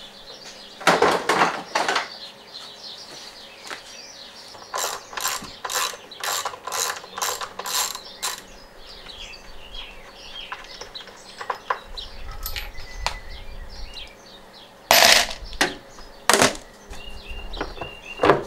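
Socket ratchet wrench clicking in a run of strokes, about three a second, as bolts on a front-loading washing machine's frame are undone. Loud knocks of parts near the start and about three-quarters through.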